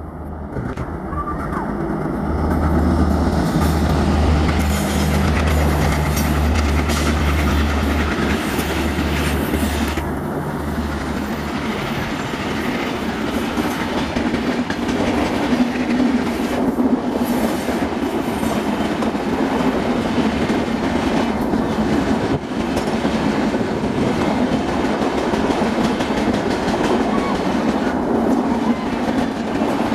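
An ALCO diesel locomotive passes with its engine running as a deep, steady drone for roughly the first ten seconds. Then the coaches roll by with rail clickety-clack and a steady wheel rumble.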